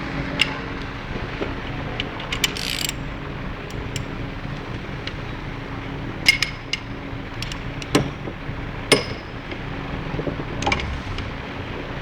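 Scattered metal clinks and clicks of steel tools and motor parts being handled, with a brief scrape about two and a half seconds in, over a steady background hum.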